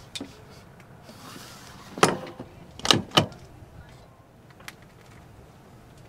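An umbrella handled at its holder in a Rolls-Royce Wraith's door, with a faint scrape and then three sharp knocks, one about two seconds in and two close together about a second later.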